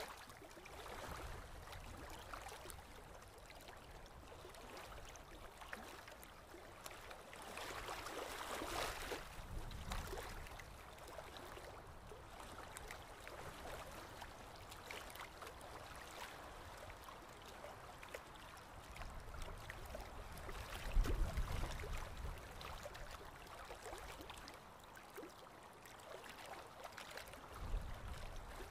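Water trickling and sloshing in a wet cloth net as it is lifted and worked in a shallow stream, with small splashes and clicks. A few louder low rumbles come about two-thirds of the way in and again near the end.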